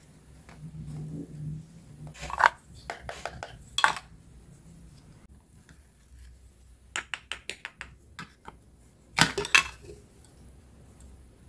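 Plastic toy food pieces and toy kitchen utensils clacking and tapping against a plastic cutting board and basket, in bursts: a cluster of knocks in the first few seconds, a quick run of about eight light ticks about seven seconds in, and the loudest clatter near the tenth second.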